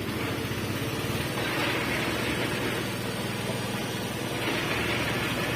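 An engine running steadily at an even idle, with a fast regular pulse underneath.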